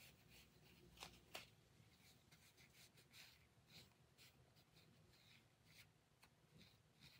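Faint rubbing of a face wipe against skin: a run of short, soft, scratchy strokes, with two light clicks about a second in.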